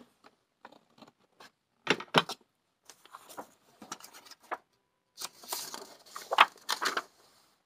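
Sheets of paper being picked up and handled: a couple of sharp taps about two seconds in, then rustling, and a louder stretch of paper rustling in the second half with a sharp snap near the end of it.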